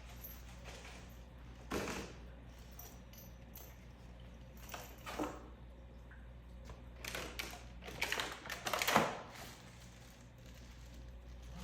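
Things being handled and put away during a room clean-out: scattered rustles and light knocks, busiest from about seven to nine seconds in, over a low steady hum.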